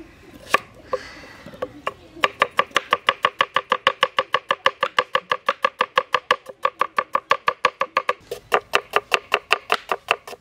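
Large kitchen knife slicing red onions on a wooden chopping board: quick, even knocks of the blade on the board, about five a second, starting about two seconds in, with a brief pause near the eight-second mark.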